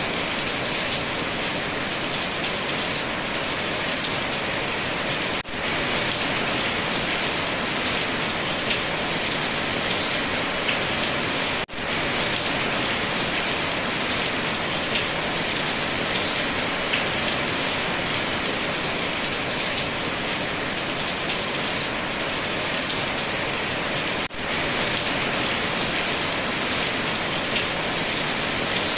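Steady heavy rain falling, a dense even hiss with individual drops pattering through it. The sound briefly drops out three times.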